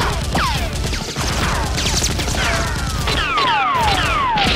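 Edited-in shooting sound effects: a quick string of a dozen or more falling whizzes, several overlapping, over background music with a steady low beat.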